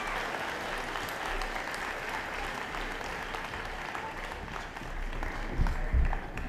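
Audience applauding, the clapping thinning out toward the end. A couple of low thumps come about five and a half and six seconds in.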